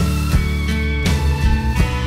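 Background music with guitar over a steady beat of about three strokes a second.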